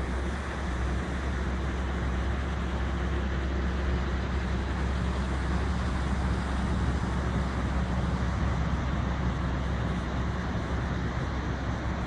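Ocean surf breaking on a sandy beach: a steady rush of noise with a deep rumble underneath.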